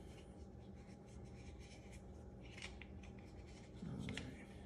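Faint clicks and light scraping of a cam clamp being handled and fitted onto the end of a metal bar clamp, with a cluster of small clicks about halfway through.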